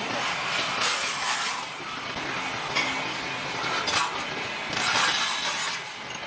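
Lathe spinning an aluminium blank while a hand-held turning tool is pressed against it and cuts it, giving about four scraping passes of a second or less each over the machine's running noise.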